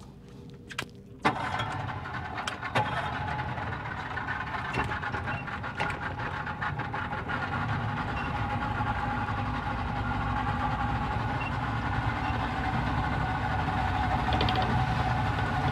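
Speedboat's engine throttling up about a second in after a few clicks, then running steadily under way and slowly growing louder as the boat picks up speed.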